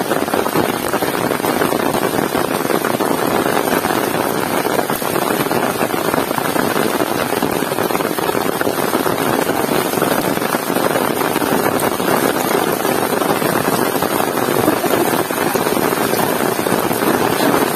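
Heavy rain pouring down steadily, a dense unbroken hiss.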